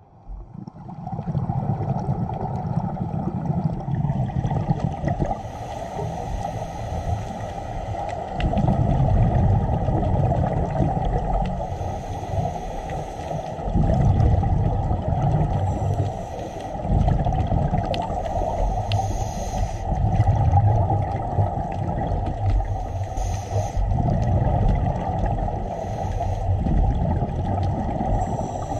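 Scuba diver breathing through a regulator, heard underwater through a camera housing: a low bubbling rumble of exhaled bubbles every few seconds, with brief hissing inhalations between, over a steady watery hiss.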